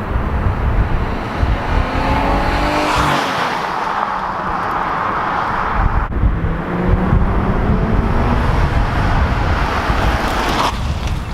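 Infiniti G35's V6 on its stock exhaust with new tips, revving with rising pitch about two seconds in and again around six seconds. Heavy wind buffeting on the microphone runs underneath.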